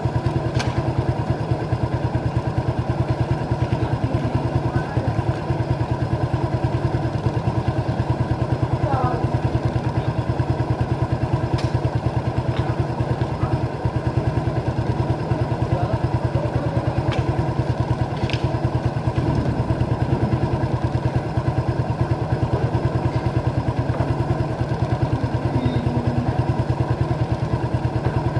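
An engine idling steadily with a rapid, even pulse, and a few sharp clicks over it.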